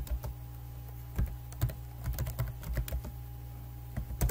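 Computer keyboard being typed on in short, irregular runs of key clicks, with a louder click near the end, over a steady low electrical hum.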